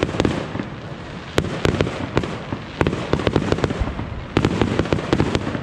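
Fireworks display going off: a run of sharp bangs and crackles at irregular intervals, thickest near the end.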